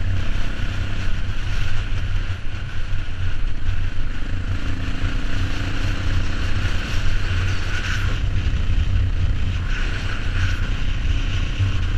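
Dirt bike engine running steadily while riding a gravel road, with wind noise on the rider-mounted camera's microphone.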